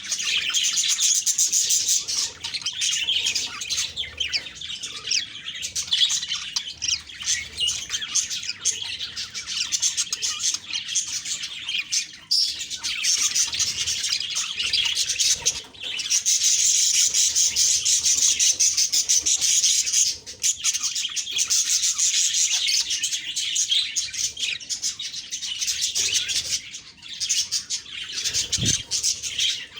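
Budgerigars chirping and warbling in a continuous, busy chatter of quick high notes, swelling louder about a second in and again midway through.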